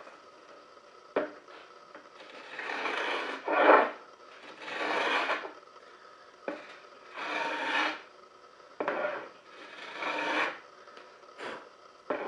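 Wood being rasped by hand in slow strokes, each about a second long, with a few sharp knocks between them.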